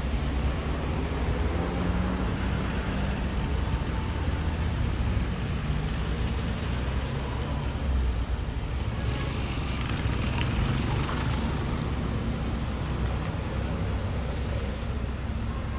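Airbus A330-200F cargo jet's engines passing overhead, a steady low rumble with a slowly gliding tone early on, mixed with street traffic noise.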